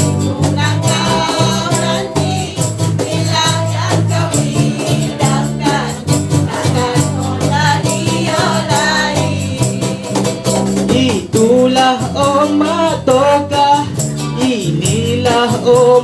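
Live acoustic band performing a Malay song: a steady bass line and a quick, even percussion rhythm under group voices singing.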